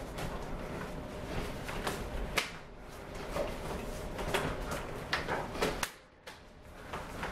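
Hands and forearms slapping and knocking together in Wing Chun chi sau as strikes are thrown and blocked: scattered sharp slaps, one about two and a half seconds in and a quick cluster around five seconds.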